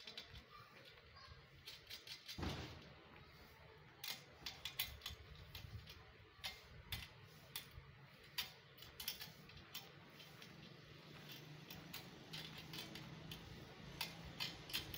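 Irregular small metallic clicks and taps from the parts of a satellite dish's feed arm and mount being fitted together by hand, with one heavier knock about two and a half seconds in.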